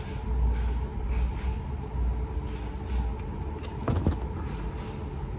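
Close-up chewing of a fried chicken sandwich with the mouth closed: irregular soft smacks and low rumbling thuds, over a steady faint hum. A brief throat sound about four seconds in.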